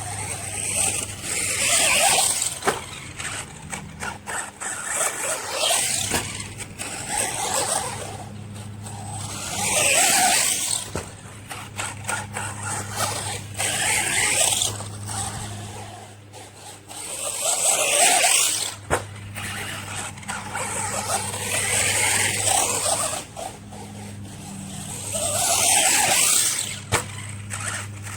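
Electric RC monster truck on a 3S LiPo battery being driven hard: its motor and gear whine surges up and falls away about six times, every few seconds, as the throttle is punched and released.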